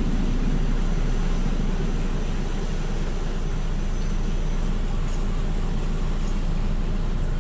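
Steady running noise of a Belanger FreeStyler soft-touch car wash at work: wraparound brushes spinning and water spraying over a low mechanical hum, heard through a car's windshield.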